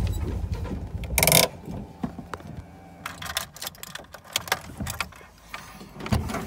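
The AE86's turbocharged 4A-GZE engine being switched off, its rumble dying away in the first second, followed by a short harsh burst and then a run of light clicks and key rattles in the cabin.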